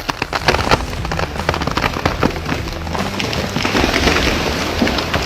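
Fire burning in a tree, crackling with dense, irregular sharp pops and a steady hiss.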